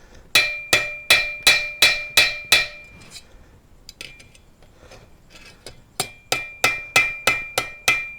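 Hand hammer striking hot steel bar stock on an anvil, forging a set-down: two runs of about seven blows each, roughly three a second, with lighter taps in between. Each blow leaves a short metallic ring.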